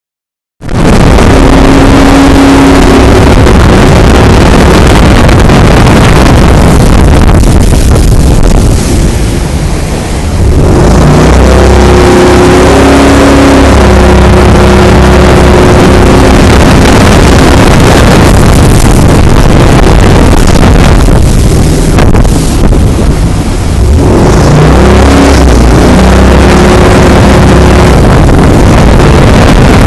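Speedboat running at speed: a steady engine drone under a heavy rush of wind and water. It is very loud, and twice the rush eases for a couple of seconds.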